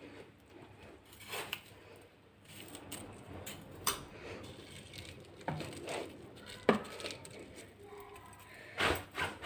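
Scattered clinks and knocks of a glass jar being handled while salted lemons are pressed down inside it, the sharpest knock about two-thirds of the way through and two more near the end.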